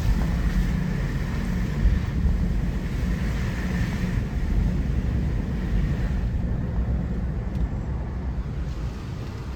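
A car driving, heard as a steady low rumble of engine and tyres. A hiss of wind thins out about six seconds in.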